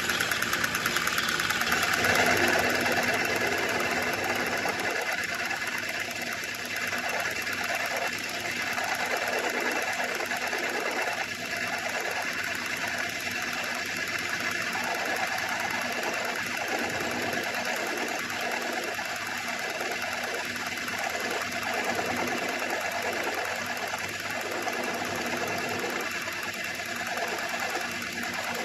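Metal lathe running steadily: a continuous machine hum with several steady tones, a little louder and brighter in the first two seconds.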